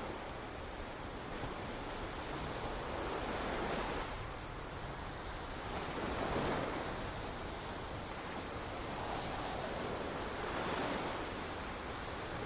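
Ocean waves washing onto a beach, the surf swelling and fading every few seconds.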